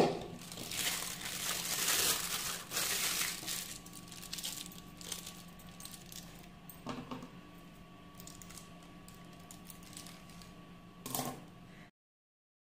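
Thin plastic piping bag crinkling and rustling as batter is scraped into it and the bag is lifted and handled, loudest in the first few seconds. A few sharp clicks, the loudest right at the start; the sound cuts off abruptly near the end.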